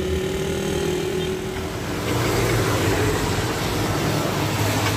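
Heavy truck's diesel engine running, with a steady low hum under an even rushing noise that grows louder about two seconds in.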